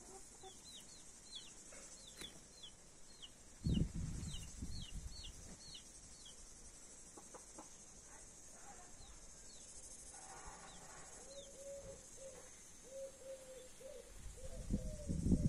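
Australorp chicks peeping in short, falling cheeps for the first six seconds or so, then the mother hen giving a run of low clucks, two or three a second, from about eleven seconds in. Two low rumbles on the microphone, about four seconds in and near the end, are the loudest sounds.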